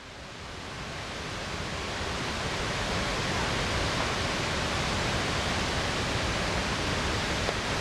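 Steady rushing of flowing water, fading in over the first two seconds and then holding level.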